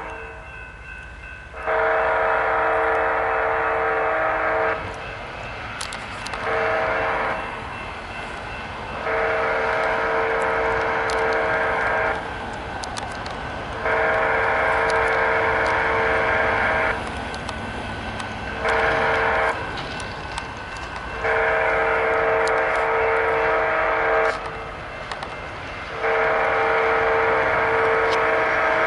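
Locomotive air horn sounding a chord in repeated blasts for a grade crossing: long, long, short, long, then long, short, long, long. The blasts are loud, most about three seconds each, with a steady rumble of noise between them.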